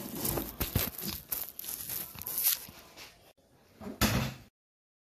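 Painted sample panels being handled and turned face down: irregular rustling and crinkling with several sharp knocks, then a short louder clatter before the sound cuts off abruptly near the end.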